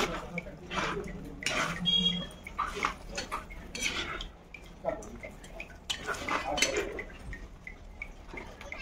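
Metal spatula stirring thick gravy in a clay cooking pot, with repeated irregular scrapes and clinks against the pot.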